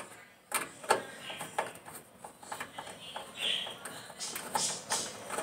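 Irregular clicks and knocks of metal panels and parts being handled on a clothes dryer taken apart for repair, with a short scraping sound about three and a half seconds in.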